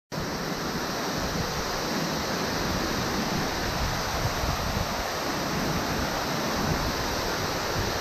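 Glacier waterfall plunging into a deep shaft in the snow: a steady, unbroken rush of falling water.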